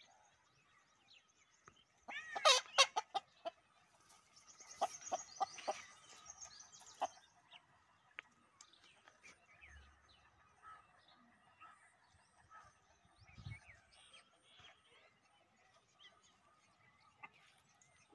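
Domestic fowl calling: a loud burst of quick repeated notes about two seconds in, then a run of longer calls. After that only faint bird chirps remain.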